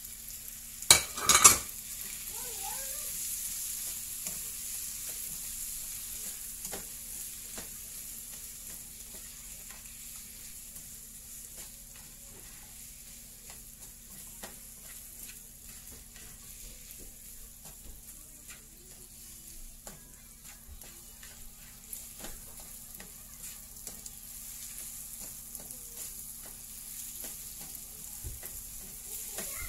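Prawns, onion and chopped tomato sizzling in a non-stick frying pan, a steady hiss with a spatula scraping and clicking against the pan as the stir-fry is stirred. A few loud sharp clacks about a second in.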